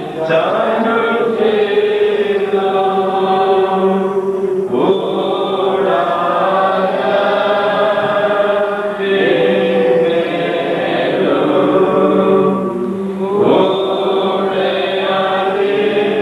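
Congregation chanting a Holy Qurbana liturgical hymn together, in long sung phrases of about four seconds with short breaks between them.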